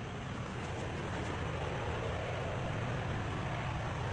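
An engine idling steadily, a low even rumble under a hiss of background noise.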